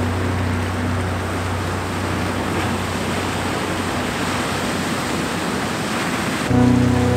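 Sea waves breaking and washing over shoreline rocks, a steady rush of surf. A steady droning tone runs under it for about the first second and starts again near the end.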